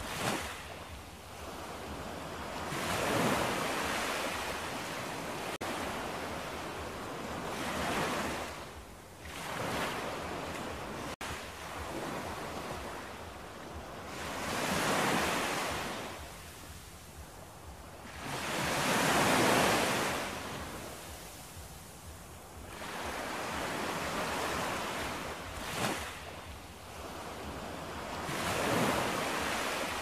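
Ocean waves breaking and washing in, with a surge of surf about every four to five seconds.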